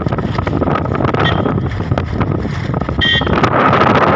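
Wind rushing over the microphone with steady vehicle noise underneath, and a short high call or whistle about three seconds in.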